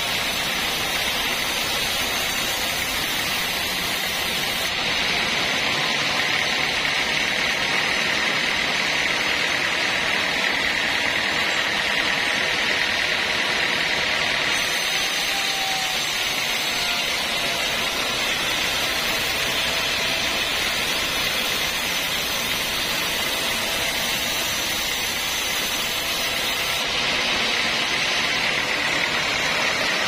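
Sawmill band saw running and ripping lengthwise through a thick slab of old hardwood, a steady hissing whine that continues throughout.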